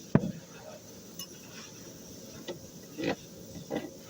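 A sharp, loud knock just after the start, then four lighter knocks or clicks spread over the next few seconds, over a steady background hum.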